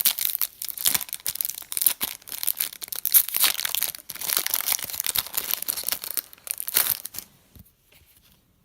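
Trading-card pack wrappers being torn open and crinkled by hand, a dense crackling that stops about seven seconds in.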